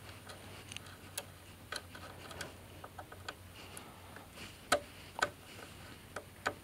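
Scattered small clicks and taps of a wire being fitted into the VFD's plastic screw-terminal block by hand, the sharpest few in the second half, over a faint steady low hum.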